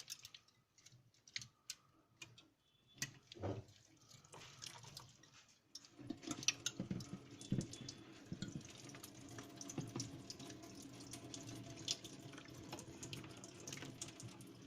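Hot water poured into a refrigerator's clogged freezer drain pipe to flush out the dirt blocking it, running steadily from about six seconds in. A few scattered clicks and knocks come before it.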